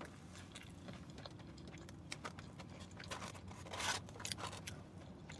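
Soft rustling and crinkling of a paper fast-food carton as fingers reach in and pick out a fried onion ring, loudest about four seconds in, with a few small clicks.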